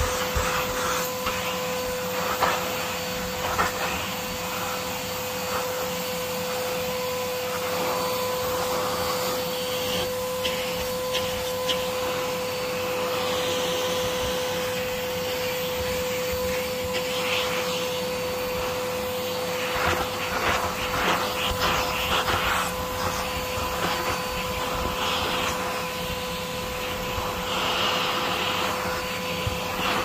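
Vacuum cleaner running steadily with a constant high-pitched whine. Short scratchy rustles come and go over it.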